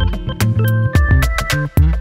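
Background music with a steady drum beat over a bass line and melody.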